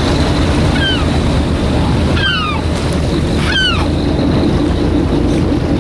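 A boat's engine runs steadily under wind and water noise, while a bird gives three short, falling calls.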